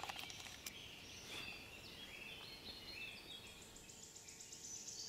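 Faint outdoor ambience: a few short, high bird chirps, then from about three and a half seconds in a high, rapid insect trill, typical of a cricket or grasshopper, that starts and grows louder.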